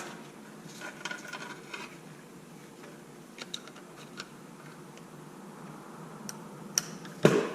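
Small clicks and light clatter of hand tools and plastic and metal parts being handled while disassembling an RC truck's rear end, with one louder knock about seven seconds in.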